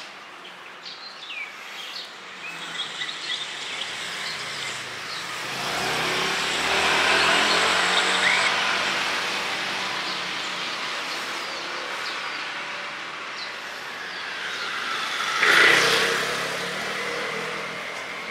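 Street traffic: a motor vehicle passes, swelling and fading about six to ten seconds in, and a second one passes closer and louder about fifteen seconds in. Birds chirp in the first few seconds.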